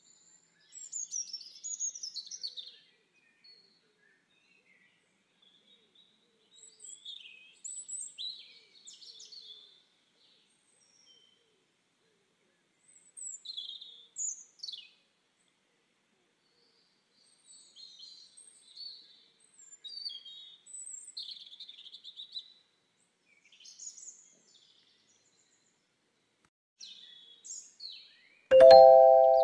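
Small birds chirping and twittering in short bursts every few seconds. Near the end a loud bell chime of several notes sounding together starts suddenly and fades away: a notification-bell sound effect.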